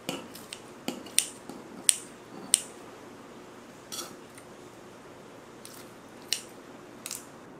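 Steel kitchen scissors snipping through a grilled tteokgalbi patty held with metal tongs: a series of sharp snips and clicks, the loudest three coming close together about one to two and a half seconds in.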